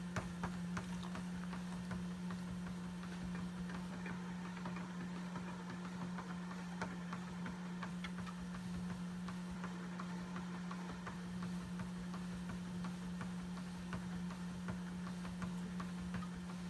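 Treadmill motor running with a steady hum, while a husky's claws tick on the moving belt in a quick, uneven patter.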